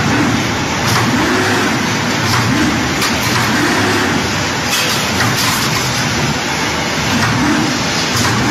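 Rebar straightening and bending machine running loudly and steadily, with a hum that swells and fades about once a second as it straightens and bends steel bar.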